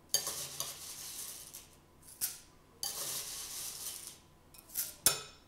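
A metal spoon scooping dry cornflakes out of a white ceramic bowl. The flakes rustle and the spoon scrapes against the bowl in several short bouts, with a sharp clink of spoon on bowl near the end.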